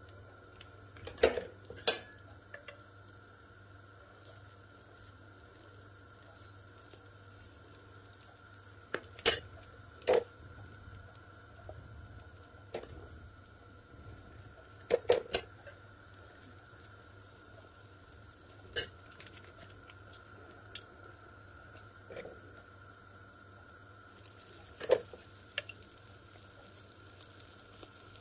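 Scissors snipping dough off a bag of batter, sharp clicks every few seconds, as the dough drops into hot oil that sizzles faintly, more so near the end. A steady faint tone runs underneath.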